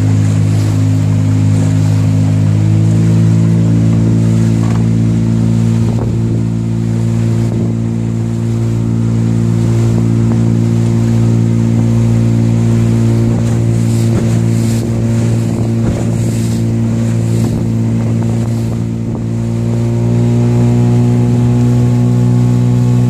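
Small boat's engine running steadily underway, its note stepping up slightly about three seconds in and growing a little louder near the end.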